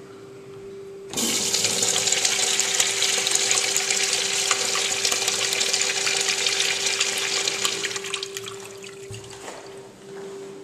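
Crane urinal's flushometer valve flushing. The handle is pushed, and about a second in a loud rush of water starts suddenly, runs steadily for about seven seconds, then tapers off.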